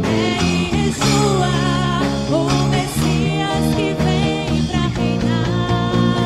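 Church worship band music: a full band with guitar playing a song, with a singing voice over it.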